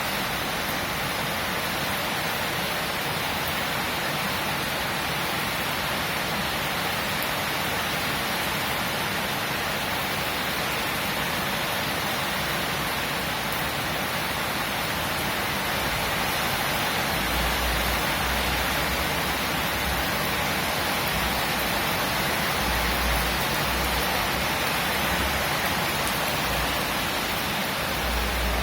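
Steady, even rain falling, a continuous hiss of drops. A faint low rumble comes and goes in the second half.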